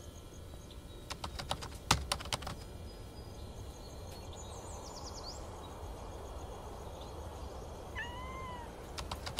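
Night-time forest ambience: a steady hiss with insects chirping in an even high pulse. Sharp clicks come in a cluster about one to two and a half seconds in and again near the end. About eight seconds in, one short animal call rises and falls in pitch.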